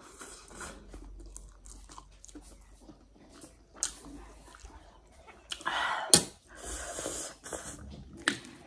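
Close-miked chewing of a mouthful of Korean ramen noodles, with soft wet mouth sounds and a few sharp clicks along the way.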